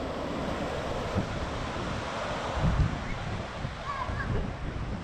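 Steady rush of ocean surf breaking on the beach, with wind buffeting the microphone in gusts, the strongest a little before three seconds in. Faint distant voices come through about four seconds in.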